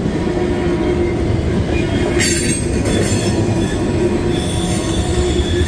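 Tank cars of a CSX freight train rolling past at speed: a loud, steady rumble of steel wheels on rail. A brief clatter about two seconds in, and a high wheel squeal comes in a little after four seconds.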